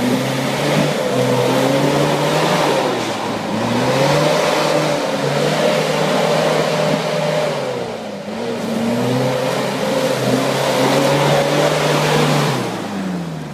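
Toyota Land Cruiser 4x4 engine revving hard under load as it climbs a deep mud rut, with its wheels spinning in the mud. The revs dip briefly twice, then fall away near the end.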